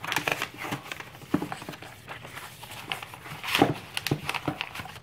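Paper and cardboard being handled as a cardboard box is opened: irregular rustling, scraping and light taps as the paper insert and wrapping are lifted out, a little louder about three and a half seconds in.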